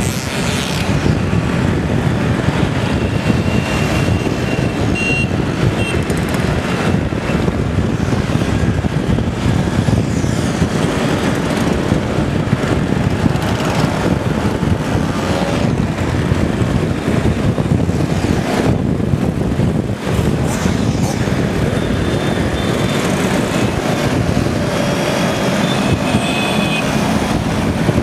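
Motor scooter engines running, a steady mechanical rumble whose pitch rises now and then as engines are revved.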